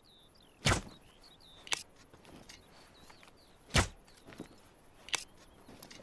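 Two sharp shots from a compound bow, about three seconds apart, each followed about a second later by a fainter sharp click. Birds chirp faintly in the background.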